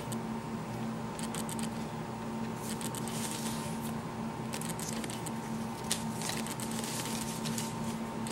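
Paper rustling in several short spells as folded puff pastry sheets are opened out and the paper between the folds is lifted and smoothed on a wooden cutting board, over a steady low hum.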